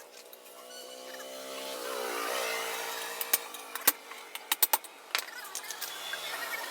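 A vehicle engine running past, its steady pitch sliding about two seconds in, followed by a few sharp metallic clicks and taps from hand tools being worked on the motorcycle wheel.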